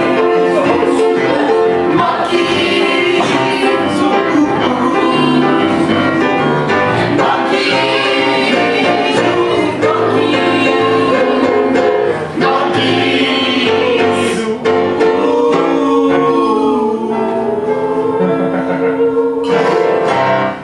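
Live group singing, several voices together in harmony, from a musical improv song.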